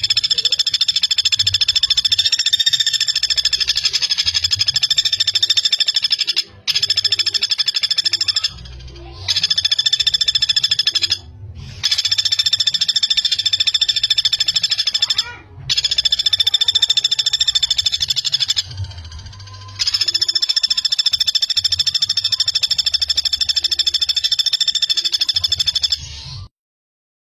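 Common flameback woodpecker (pelatuk bawang) calling in long, very fast rattling trills. There are six trills in a row, each lasting about two to six seconds, with short breaks between them.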